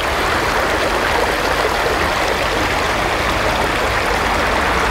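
Creek water running over rocks in a shallow riffle: a steady, even rush of flowing water.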